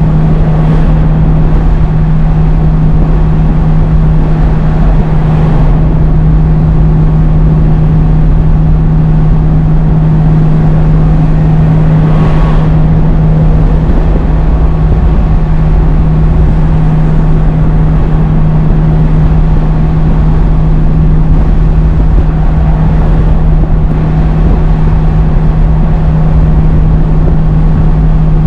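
Scania G500's 13-litre six-cylinder diesel drones steadily at one low pitch, holding a 56-tonne truck and quad dog trailer in 7th gear on a steep freeway descent without the foot brakes. Road rumble runs underneath, and a few cars swish past.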